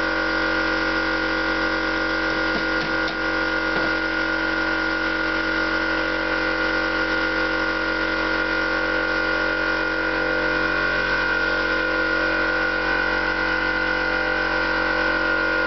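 A steady machine hum made of several unchanging tones at an even level.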